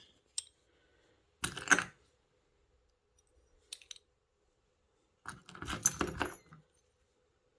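Heavy metal insignia pieces clinking and jingling as they are handled, in two short clatters, about one and a half seconds in and again about five to six and a half seconds in, with a few lighter ticks between.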